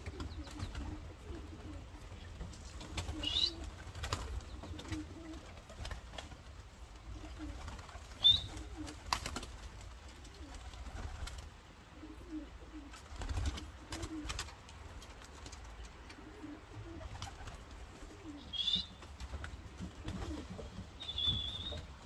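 English Tippler pigeons cooing over and over in short low phrases. A few short high chirps and several sharp knocks come in between, the loudest knock about eight seconds in.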